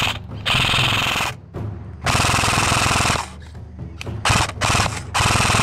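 Airsoft automatic electric gun firing full-auto: several bursts of about a second each, with a few shorter bursts between, each a rapid even rattle of shots.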